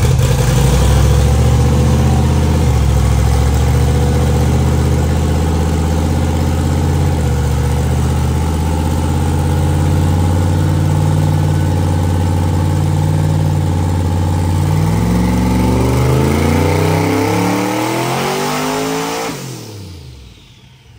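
Twin-turbo LS V8 in a Camaro running on a chassis dyno at about 12 psi of boost. Its engine note holds steady for about fifteen seconds, then rises sharply through a full-throttle pull. It cuts back about a second before the end and winds down.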